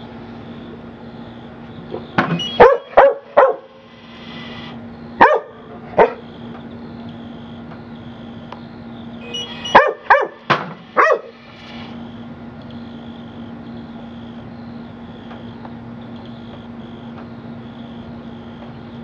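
Pit bull terrier barking in short, sharp barks in three bursts: about four quick barks two seconds in, two more around five to six seconds, and a run of five around ten seconds, then quiet barking stops for the rest.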